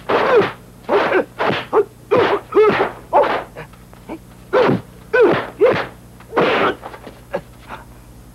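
Martial-arts fighters' shouted battle cries (kiai) and yelps, about a dozen short, sharp cries in quick succession that thin out near the end.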